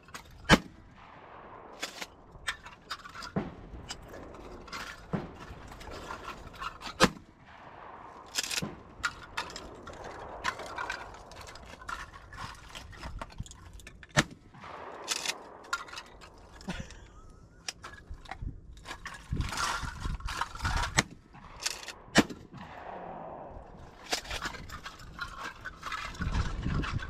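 Pump-action shotgun shots at clay targets: four loud reports, roughly seven seconds apart, with lighter knocks in between, over wind noise.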